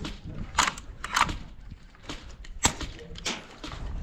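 Airsoft guns firing single shots: about five sharp cracks at irregular intervals, a half second to a second apart.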